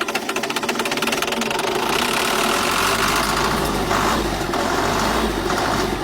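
Old 450 bulldozer engine running with a fast, even knocking beat, picking up and getting a little louder about two seconds in. It is running just after an ether start, with its leaking fuel return line plugged by a finger.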